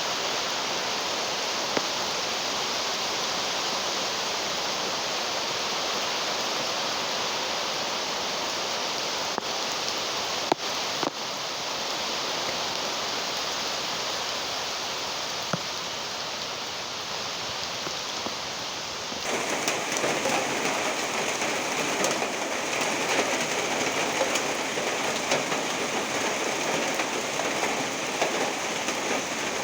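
Heavy rain falling, a dense steady hiss with a few sharp ticks of drops. About two-thirds of the way through it grows louder and more crackly, a close patter of drops hitting a surface.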